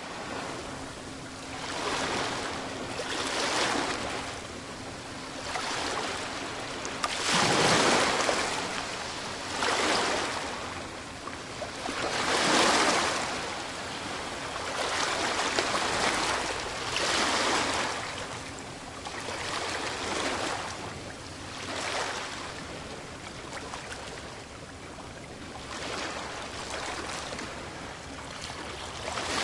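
Ocean surf: waves washing in and drawing back, swelling and falling every two seconds or so.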